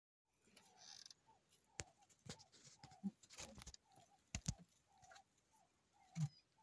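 Faint bird calling, repeating a short mid-pitched note about every half second to second. A few sharp clicks sound around the middle, and a brief low sound near the end is the loudest.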